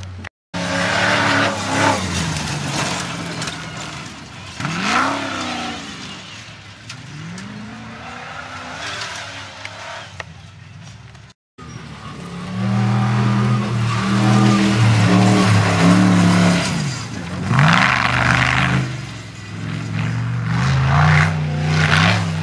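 Off-road racing 4x4s running hard over a dirt course, several passing one after another, engine pitch climbing and falling as they rev and go by. The sound drops out briefly twice, about half a second in and about halfway through.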